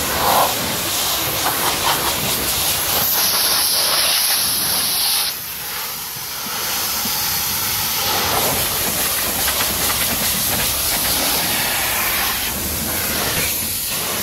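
Pressure-washer water jet spraying against a car's bodywork, wheel and wet pavement: a steady hiss that dips briefly about five seconds in, as the spray shifts.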